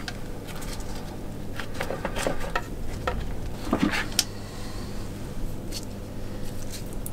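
Small electric water pump humming steadily as it agitates the plating electrolyte, with scattered light clicks and knocks of parts being handled, the loudest about four seconds in.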